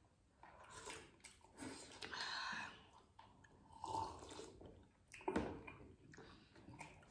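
Quiet eating sounds: chewing and slurping of soup from spoons in scattered short bursts, with a sip from a glass of cola.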